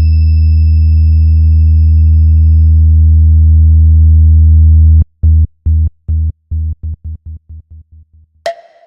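Electronic hard-bass music: a deep, loud sustained bass tone held for about five seconds, then chopped into stuttering pulses that speed up and fade away, with a few sharp clicks near the end.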